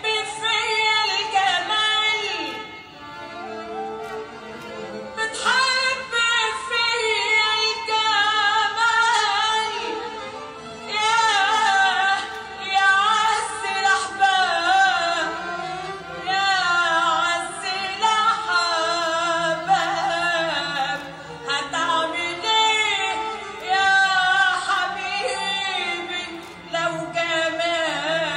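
Egyptian baladi song: a woman singing a wavering, heavily ornamented melody with instrumental accompaniment.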